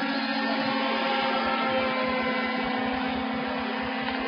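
Radio-controlled model helicopter's small engine running at a steady pitch, a continuous buzzing whine.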